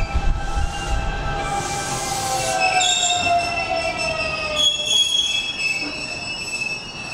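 Hanshin Railway electric train braking into the platform. A whine falls steadily in pitch over the first five seconds, and high wheel and brake squeal joins from about three seconds in.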